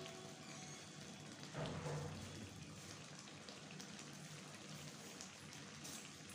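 Thick spinach saag simmering in an open kadhai on a gas stove, bubbling and spattering as a steady hiss. A soft low thump comes about one and a half seconds in.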